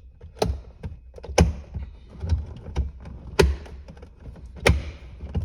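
Plastic clips of a 2017 Chevy Tahoe center console lid panel being pressed and snapped back into place: a series of about six sharp clicks and knocks, roughly a second apart.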